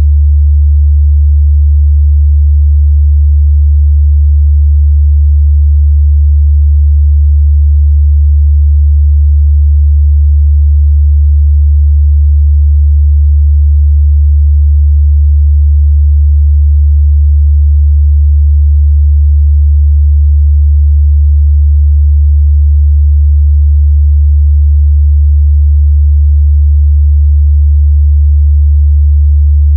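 A steady 73 Hz sine-wave test tone, a constant low bass hum held at one pitch and level, used to check speaker and headphone mid-bass response.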